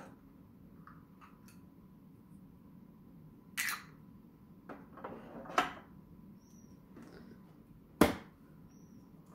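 Hard plastic clicks and clatters from a Nescafé Dolce Gusto Genio S capsule machine's parts being handled: a clatter about three and a half seconds in, a few clicks around five to six seconds, and a sharp click at about eight seconds, the loudest, as the capsule holder is pushed into place.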